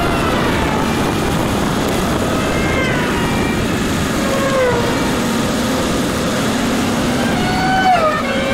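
Two-stroke 125 cc superkart engine running at high revs over a heavy rush of wind noise. Its pitch falls away several times as the revs drop.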